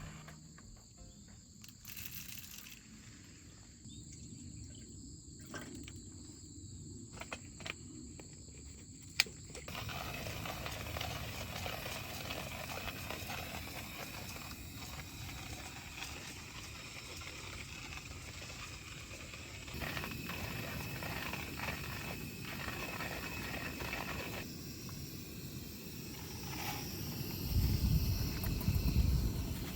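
Outdoor ambience with insects chirping steadily, the background noise changing abruptly several times. There is a single sharp click about nine seconds in, and a loud low rumble near the end.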